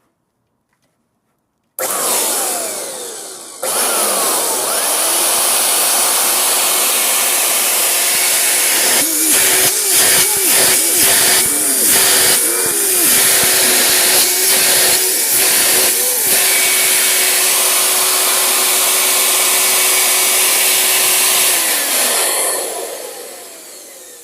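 Freshly rebuilt two-turbine industrial vacuum suction motor on a test run: it starts abruptly with a loud whine and rush of air, winds down briefly, then starts again and runs steadily, with several brief wavers in the middle, running well. Near the end it is switched off and winds down, the whine falling as it fades.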